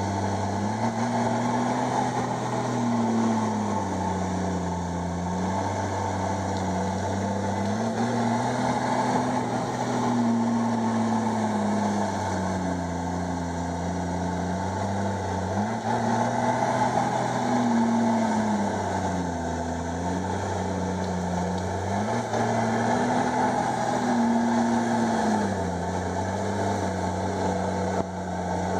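Komatsu D51EX bulldozer's diesel engine running under load, its pitch climbing and dropping back about four times as the revs rise and fall.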